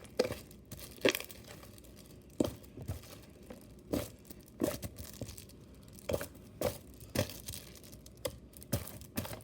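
Sticky glue slime being kneaded by hand, giving irregular sticky pops and crackles about once or twice a second; the slime is still a little sticky, not yet fully activated.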